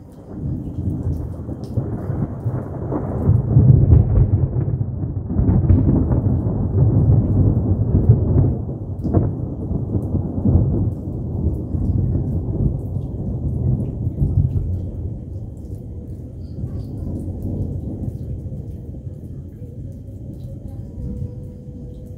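A long roll of thunder that rises suddenly at the start, is loudest a few seconds in, and rumbles on while slowly fading, with rain falling.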